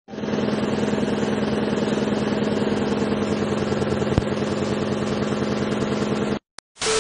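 Mercedes-Benz car engine running at a steady speed, heard from inside the cabin, with a fine rapid pulsing and one sharp knock about four seconds in. It cuts off suddenly near the end.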